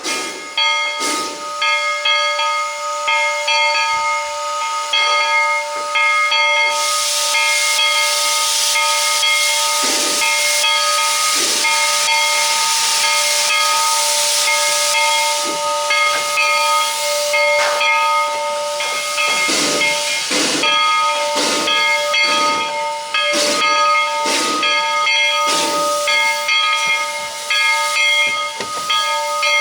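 Narrow-gauge steam locomotive hissing steam, with a steady whistling tone of several pitches that runs throughout. A strong rush of hiss sets in about a quarter of the way through and lasts roughly ten seconds.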